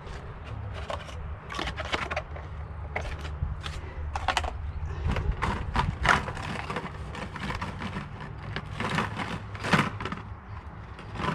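Irregular clicks, knocks and scrapes of hands working a new wiper blade and its plastic parts free for fitting, over a steady low hum.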